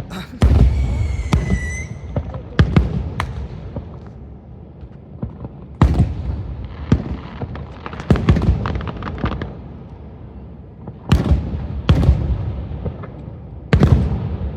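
Fireworks display: a string of aerial bursts, sharp bangs every second or two, each followed by a low rumbling echo. A high whistle sounds in the first couple of seconds.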